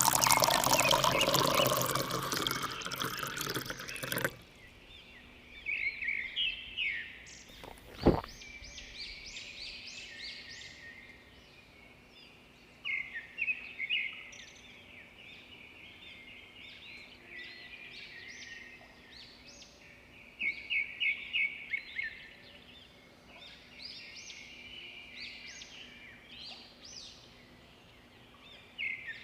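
Water pouring for about four seconds, then a single sharp knock, then small birds chirping in short bursts for the rest of the time.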